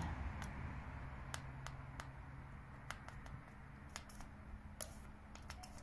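Faint, scattered clicks and handling noise over a faint low hum, with no motor whine: the Ninebot scooter's motor does not respond when it is tried, since it only engages once the scooter is pushed above 3 km/h.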